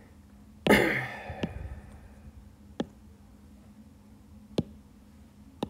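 A sharp breath out about a second in, then four isolated sharp taps spread over the next few seconds, a stylus tapping on a tablet's glass screen.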